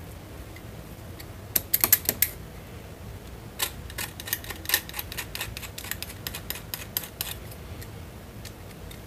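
A blade scraping dried paint off a wooden paint stirring stick: a short run of sharp, clicking scrapes about a second and a half in, then a longer, irregular run of them from about three and a half to seven seconds.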